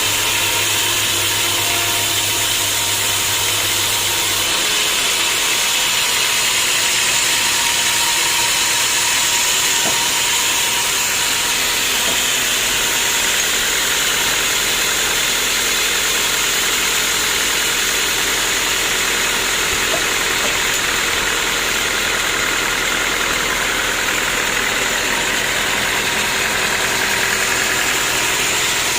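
Sawmill machinery running steadily with a continuous hissing noise. A low hum stops about four and a half seconds in.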